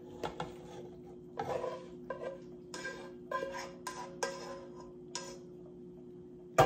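A serving spoon scraping and knocking against a skillet as sausage-and-tomato sauce is scraped out into a stockpot of pasta: a string of irregular short scrapes and clatters over a faint steady hum.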